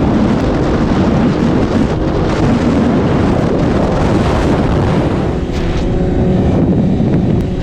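Sport motorcycle running at speed, its engine note mostly buried under loud wind rush on the microphone; about five and a half seconds in, the steady engine note comes through again.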